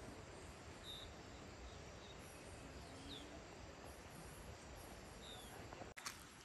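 Faint outdoor ambience: a steady hiss with three short high chirps spread through it, and a couple of sharp clicks near the end as the sound cuts.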